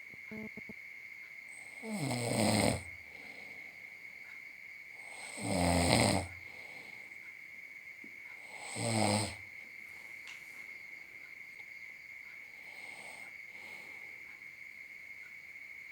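A sleeping man snoring: three loud snores about three seconds apart, each falling in pitch, followed by several seconds of quieter breathing. A steady high-pitched tone runs underneath.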